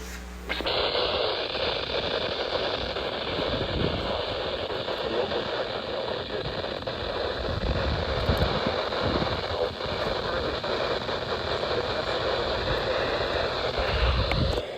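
Radio receiver hiss: a steady rush of static on an open channel with no programme audio, starting about half a second in.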